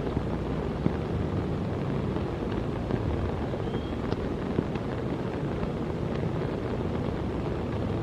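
Steady rain falling, a dense rushing with scattered faint ticks of drops.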